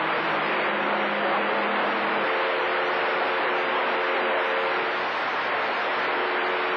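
CB radio receiver on channel 28 between skip transmissions: a steady rush of static, with faint steady low hum tones in it, one stopping about two seconds in and a slightly higher one running from about one and a half to five seconds in.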